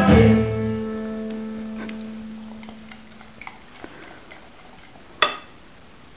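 Background music ends on a plucked-string chord that rings out and fades away over about three seconds. After that it is quiet apart from a few faint ticks and one sharp click about five seconds in.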